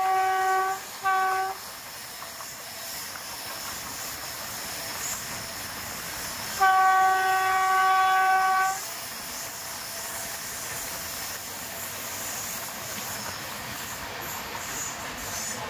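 Indian Railways train horn sounding from the front of the train: a blast that ends just after the start, a short toot about a second in, and a longer blast of about two seconds around seven seconds in. Between the blasts is the steady noise of the running train, heard from an open coach door.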